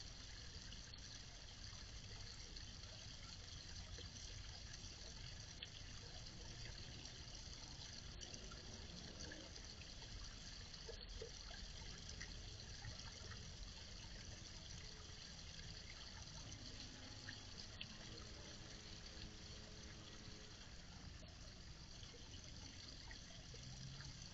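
Small garden pond waterfall trickling and splashing steadily into the pond, heard faintly.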